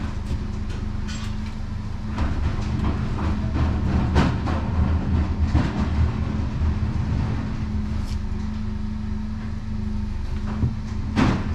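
Forklift engine running with a steady low rumble and hum while the hoisted marine engine is lowered, with a few scattered metallic clicks and knocks from the chains and hoist.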